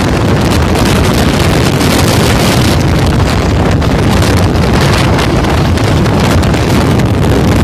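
Loud, steady wind noise buffeting a phone microphone on a motorcycle moving at highway speed, with the bike's running and road noise blended underneath.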